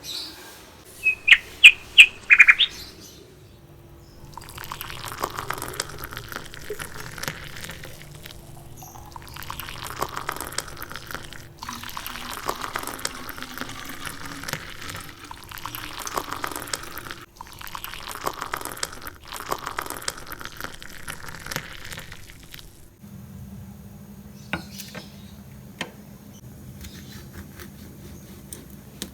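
Water running and splashing in several stretches with short breaks, like washing under a tap. Near the start come five short, sharp, high chirps. A steady low hum sets in near the end.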